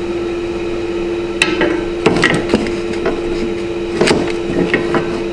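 Scattered knocks and clatters as a headlight bracket is handled and worked into the front end of a car, over a steady machine hum.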